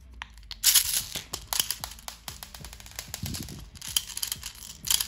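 6 mm airsoft BBs being pushed one by one into the magazine of a WE 1911 gas blowback pistol: an irregular run of small clicks and rattles, with a few louder clicks.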